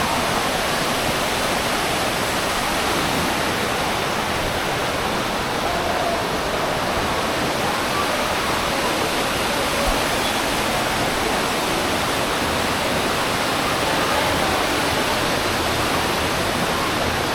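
Steady rushing of a waterfall and creek water, even and unbroken.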